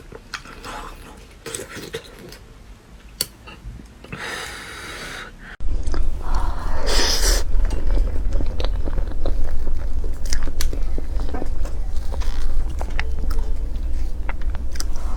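Close-miked mouth sounds of eating: chewing and biting with small crunches and clicks. About five and a half seconds in, the sound abruptly gets louder and a steady low hum starts underneath.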